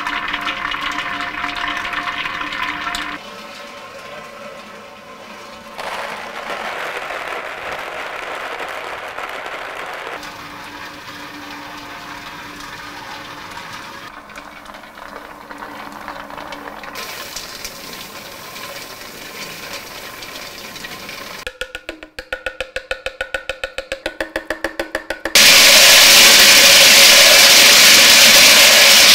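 Dragée panning machine sounds across several short cuts: nuts and dragées tumbling in a rotating steel coating pan over the steady hum of its motor. Near 22 s there is a rapid even clicking, about five a second. About four seconds from the end a loud steady rush starts and holds.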